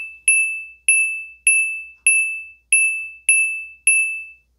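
A string of identical bright ding chime sound effects, one about every 0.6 s, each struck sharply and ringing out briefly, stopping shortly before the end. They are editing sound effects marking each ingredient label popping onto the screen.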